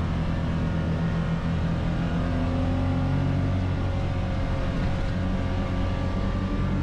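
Engine of a small enclosed utility vehicle driving across lake ice, heard from inside its cab: a steady low drone whose pitch shifts a little partway through.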